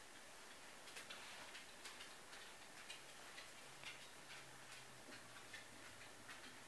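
Faint, irregular light clicks and taps of a kitten's claws and paws on a hardwood floor as it plays, over near-silent room tone.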